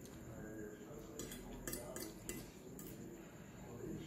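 A metal fork clinking and scraping against a plate while food is picked up, about five quick clicks about a second into the clip.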